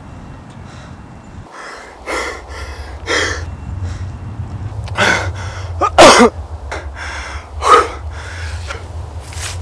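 A man's heavy, explosive breaths and gasps, a string of sharp exhalations. The loudest comes about six seconds in, where the voice catches into a strained cry.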